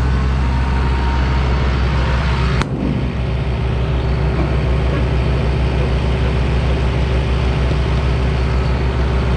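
Case 2294 tractor's six-cylinder diesel engine running steadily under way, with a single sharp click about two and a half seconds in.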